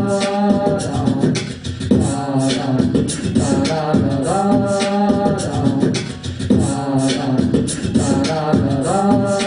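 Live vocal loop: beatboxed percussion layered under wordless sung vocal lines, the phrase repeating about every four and a half seconds.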